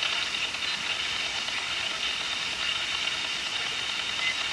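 Spirit box sweeping through radio stations: a steady hiss of radio static.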